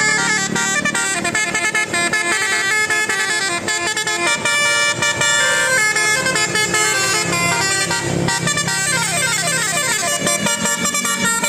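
Telolet basuri multi-tone musical air horn on a bus, playing a continuous tune of changing notes. About eight seconds in, its pitch slides in sweeps.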